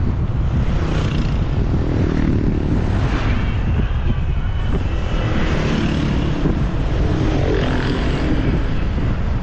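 Riding noise from a Vespa scooter on the move: a steady wind rumble on the microphone over the scooter's engine and surrounding traffic, with a few louder swells that rise and fade.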